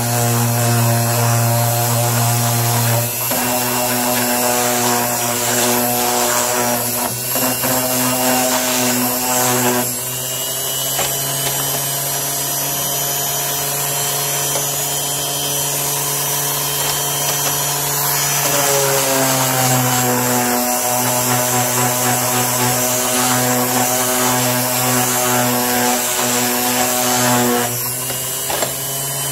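Electric orbital sander with a round hook-and-loop pad running steadily against a small wooden box, sanding its face smooth. The motor hum shifts in pitch several times as it works.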